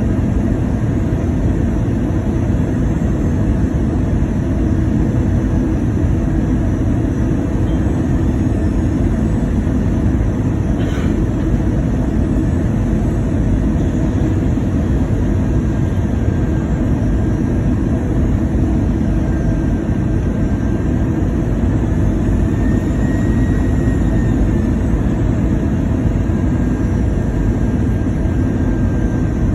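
Steady cabin noise inside an Airbus A319: an even low rumble of engines and airflow, with a faint steady whine above it and a brief tick about eleven seconds in.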